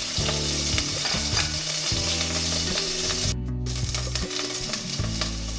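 Hot olive oil sizzling steadily in a pot around seared fresh tuna loins as they are lifted out, the hiss dropping out briefly about three and a half seconds in. Low steady background-music notes play under it.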